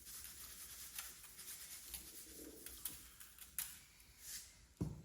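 Faint handling sounds as raw beef ribs are turned and seasoned: soft scratching and rubbing with a few light clicks.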